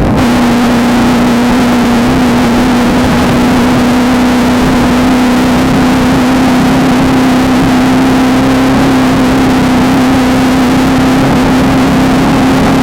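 Off-road desert race car engine running hard at a steady high pitch, over a constant rushing noise.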